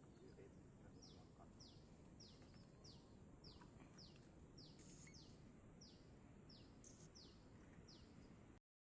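A bird repeating a short, falling chirp about twice a second, faint, over a steady high hiss. The sound cuts off suddenly near the end.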